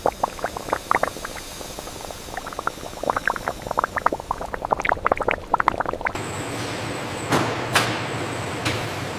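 Thick liquid boiling in a cooking vessel, bubbles popping irregularly for about six seconds. It cuts to a steady machine hum with a thin high whine and a few sharp knocks.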